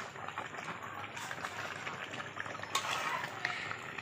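Beef braising in its own released juices in a large aluminium karai over a wood-fired clay stove: a steady sizzle, with a couple of faint knocks of the spatula against the pan.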